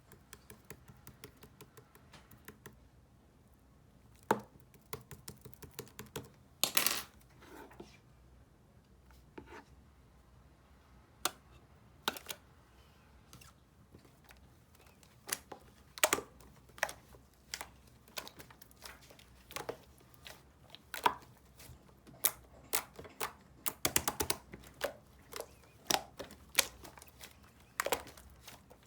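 Slime being squeezed and pressed by hand, giving off irregular sharp pops and clicks as air pockets burst, with a longer crackly squish about seven seconds in.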